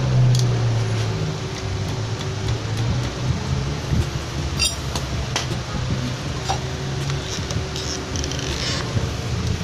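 Scattered light metallic clinks and ticks of tools and parts being handled at a motorcycle engine's bared cylinder head, over a steady low hum that drops after about a second and dies away later on.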